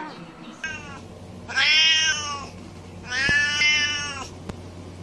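A deaf-from-birth white tomcat meowing three times: a short falling meow about half a second in, then two long, drawn-out meows.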